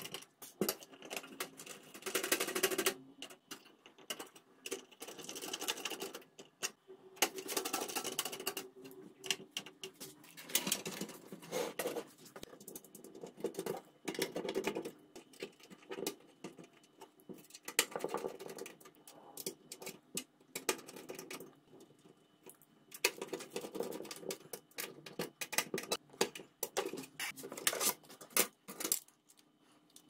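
Irregular clicks, taps and rustling from hands handling computer parts in a steel PC case as the motherboard, cables and a 3.5-inch hard drive are fitted.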